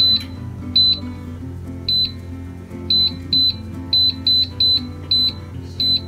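Air fryer touch-panel buttons beeping as the cooking timer is set: about ten short, high, identical beeps, unevenly spaced and coming faster in the middle.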